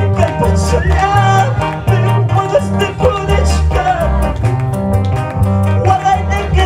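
Live band music: electric bass guitar and electronic keyboards playing an upbeat tune over a steady beat, with quick cymbal ticks on top.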